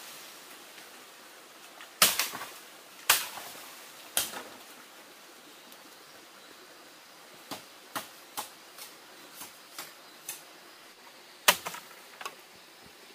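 Sharp knocks of hand-tool strikes on bamboo: three loud ones about a second apart, then a run of lighter, quicker taps, and one more loud strike near the end.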